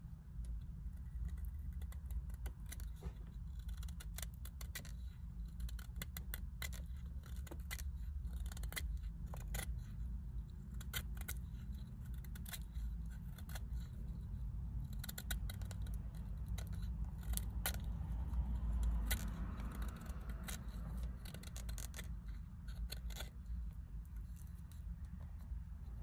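Small knife blade whittling cedar wood: a long run of short, crisp slicing and scraping cuts as thin shavings come off, over a steady low rumble.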